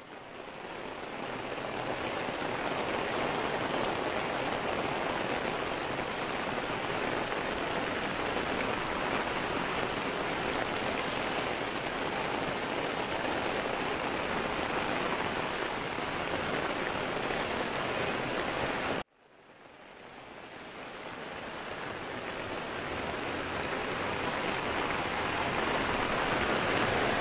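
Steady rain falling, an even hiss with no distinct drops standing out. It cuts out suddenly about nineteen seconds in and slowly fades back up.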